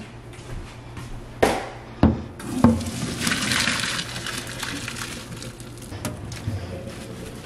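Three metal clanks of a cooking pot, then boiled spaghetti and its hot water poured through a metal colander into a stainless steel sink, a rushing splash for about two seconds that fades away.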